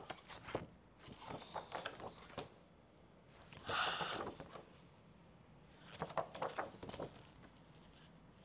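Faint handling noises of stiff paper flash cards being flipped and held up, with a short soft hiss about four seconds in, a woman quietly making the 's' phonics sound.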